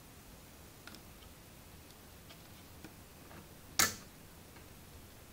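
Switch clicks from a PIC-controlled relay board: a few faint ticks, then one sharp, much louder click a little under four seconds in.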